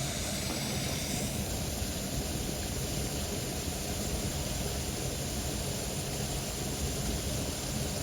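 Steady, even outdoor background rush with no distinct events.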